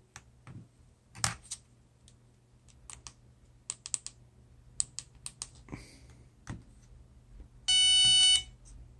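Four-post 12 V DC solenoid (contactor) clicking each time 12 V is tapped onto its coil terminal with a power probe: about a dozen sharp, irregular clicks as the plunger pulls in and closes the contacts of a good solenoid. Near the end comes a short electronic beep lasting about half a second.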